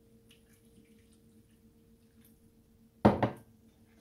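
Chicken broth poured from a measuring jug into a pan of thick sauce, faint dripping and trickling with small ticks, over a faint steady hum. A single loud knock about three seconds in.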